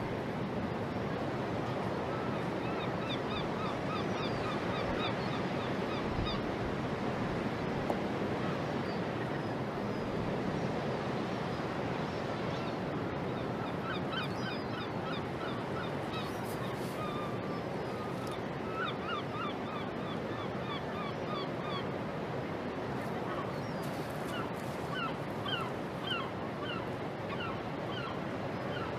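Birds calling in quick runs of short, repeated notes, several runs of a few seconds each, over a steady wash of harbour water and outdoor noise.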